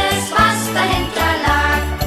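Instrumental passage of a children's Christmas song: a pulsing bass line under melody instruments, with jingle bells.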